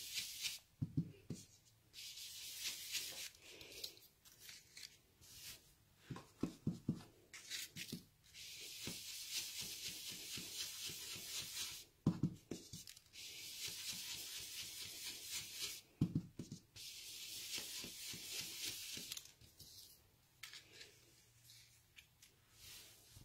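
Ink blending brush swirled over cardstock, a scratchy rubbing that comes in stretches of one to three seconds, with soft taps in between.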